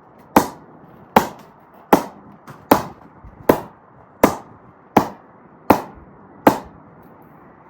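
A refurbished willow cricket bat being struck nine times at an even pace, about one knock every three-quarters of a second, each a sharp knock with a short ring: a demonstration of the bat's ping.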